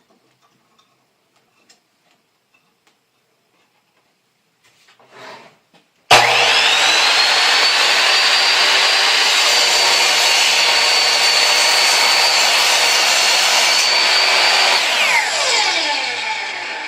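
Ryobi 10-inch sliding compound miter saw starting abruptly about six seconds in and running at full speed with a steady high whine while making a 15-degree miter cut in a wooden board. Near the end the trigger is released and the blade spins down with a falling whine.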